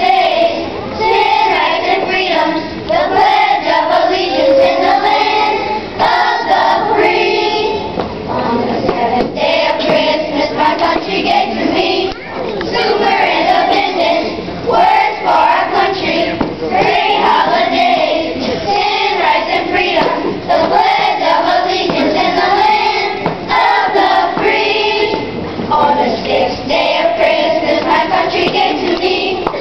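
A children's choir singing together in unison.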